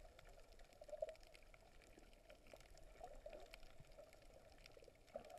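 Faint, muffled underwater ambience of water moving around a submerged camera, with scattered light ticks and crackles and a brief louder knock about a second in.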